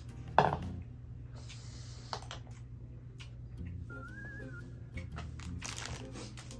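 Soft background music under eating sounds. A short loud sound comes about half a second in, followed by small knocks of a bowl and chopsticks, and rustling near the end.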